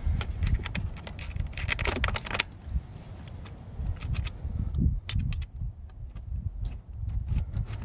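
Metal hand tool clicking and scraping against the handlebar clamp bolts of a pit bike's BBR big bar kit: a dense run of quick clicks in the first couple of seconds, then scattered single clicks.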